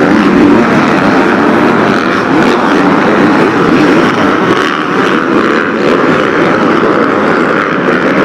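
Several MX2 motocross bikes racing on the track, their engines revving up and down as they ride.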